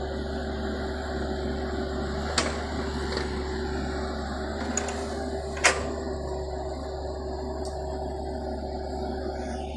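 Kubota U50 mini excavator's diesel engine running steadily with a constant hum, broken by a couple of sharp knocks, the louder one a little before six seconds in.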